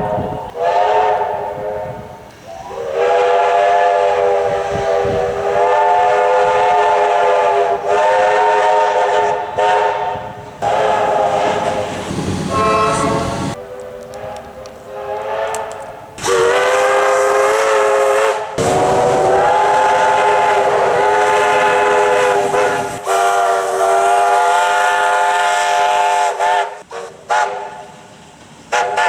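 Train air horns sounding a series of long blasts, each a chord of several notes held together, with short breaks between them.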